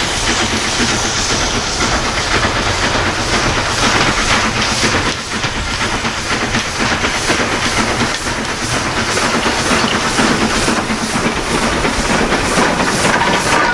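LMS Fowler 3F 'Jinty' 0-6-0 tank engine working hard with a passenger train, its exhaust beating in an even rhythm with steam hiss. The beats grow sharper near the end as it draws close.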